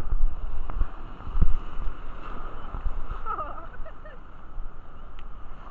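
Rumbling wind and water noise on a microphone held just above the sea surface, with a few dull knocks and a brief faint voice about three seconds in.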